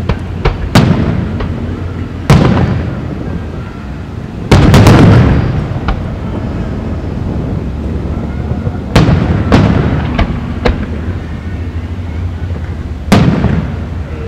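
Aerial firework shells bursting: a run of about eight sharp booms, each trailing off before the next. The loudest cluster comes about four and a half seconds in, and more follow near nine and thirteen seconds.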